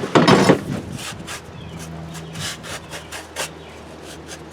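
Ratchet wrench tightening a lawnmower engine's mounting bolt: a loud scrape near the start, then a string of short, sharp clicks a few per second.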